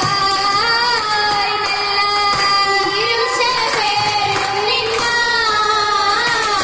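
Girls singing an oppana song together, with a few handclaps.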